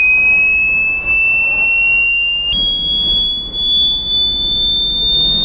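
A shrill pure electronic tone played as a prank sound. It slowly rises in pitch and jumps up a step about two and a half seconds in, over low road rumble inside a moving car.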